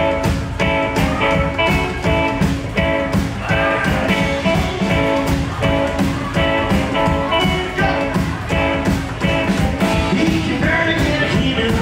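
Live rockabilly band playing: electric guitar over upright double bass and a drum kit, with a fast, steady beat.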